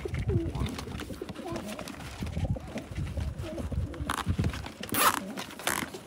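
Domestic pigeons cooing inside a cardboard shipping box, with a few short bursts of cardboard rustling as the box's flaps are handled, the loudest about five seconds in.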